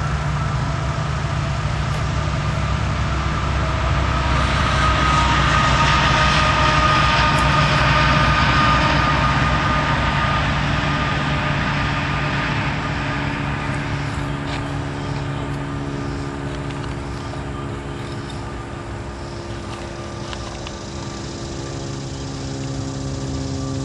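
Steady engine drone that swells to its loudest about six to nine seconds in, then slowly fades.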